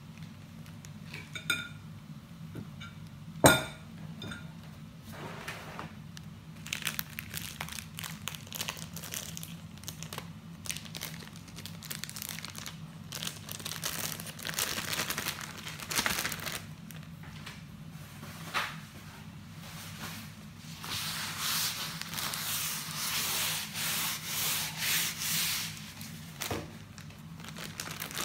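Plastic zip-top bag rustling and crinkling as it is handled and filled with mashed potato, the crinkling swelling in several waves near the end. A sharp knock about three and a half seconds in, over a low steady hum.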